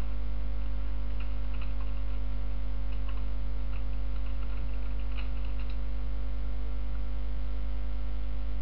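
Steady electrical mains hum in the recording, with faint computer keyboard key clicks scattered through the first six seconds or so as text is typed.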